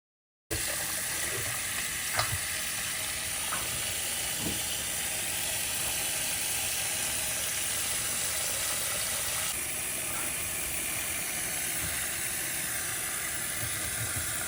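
Kitchen tap running steadily into a bowl, with a few light clicks. The water is soaking frozen prawns to thaw off their ice.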